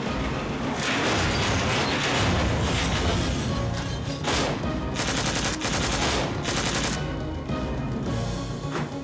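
Bursts of automatic gunfire in a battle, heaviest and fastest from about five to seven seconds in, over dramatic film score music.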